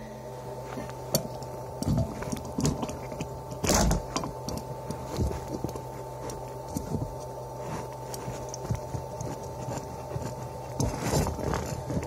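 Irregular metal scraping, clicks and knocks as the electric motor of a cut-open refrigerator compressor is worked loose and pulled out of its sump, with one loud knock about four seconds in. A steady low hum runs underneath.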